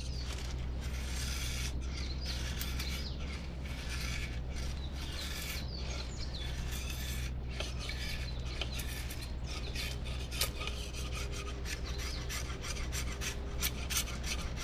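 Knife blade shaving and scraping bark off a green strawberry guava stick in quick, repeated strokes.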